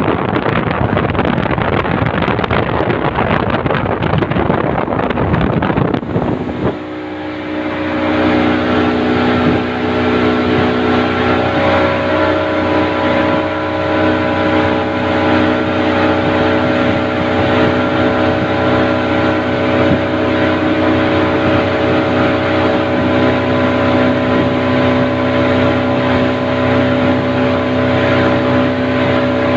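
1987 Johnson 140 V4 outboard engine running at a steady speed, a constant multi-tone hum that holds level. For the first six seconds a rushing wind and water noise covers it, and the engine tones come through clearly from about seven seconds in.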